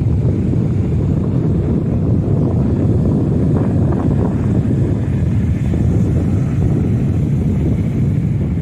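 Rough sea surf washing in steadily under strong wind, with the wind buffeting the microphone into a heavy low rumble.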